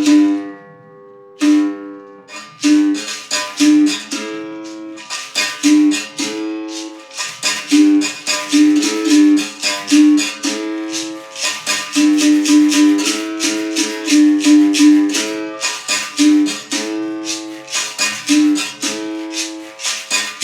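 Berimbau played in a steady rhythm, its string struck to sound two alternating pitches, with the rattle of the caxixi shaker; the playing pauses briefly about a second in, then carries on.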